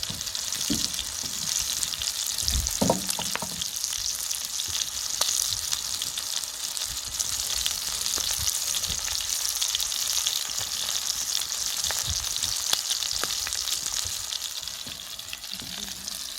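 Pork neck and pork belly sizzling on a hot pan over a wood stove: a steady hiss with fine crackles throughout, and a few low thuds in the first few seconds.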